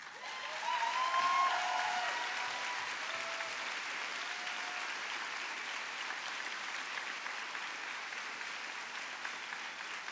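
Large audience applauding, the clapping swelling over the first second or two and then holding steady.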